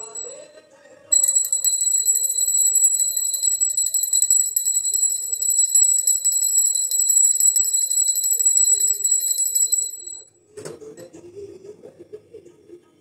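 A small metal bell rung rapidly and without pause for about nine seconds, a high, bright ring that starts and stops abruptly. A single knock follows soon after it stops.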